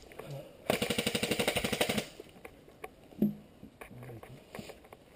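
Airsoft electric gun firing a full-auto burst, a rapid even rattle of shots lasting a little over a second. Afterward come a few scattered light clicks and one sharp knock.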